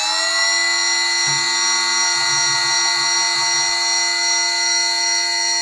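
High-speed spindle of a Strizh-4 CNC jewellery mill running with a steady high-pitched whine made of many tones. Its pitch finishes climbing in the first half second as the spindle comes up to speed.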